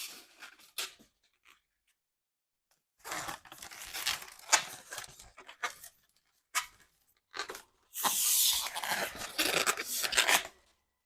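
Latex balloons being handled close to the microphone, the rubber rubbing and stretching in noisy stretches as they are twisted and tied, with a few sharp snaps. The densest handling comes in the last few seconds.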